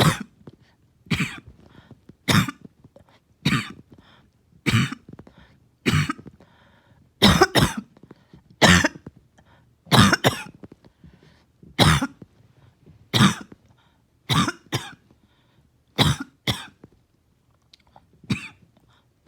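A person coughing in a prolonged coughing fit: harsh coughs about once a second, some in quick pairs, with no let-up.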